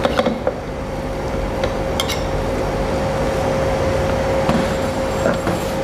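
A metal spoon scraping and clinking against a bowl as minced beef is scooped into a plastic food-processor bowl, a few scattered clicks, the clearest about two seconds in. Under it runs a steady hum with one constant tone.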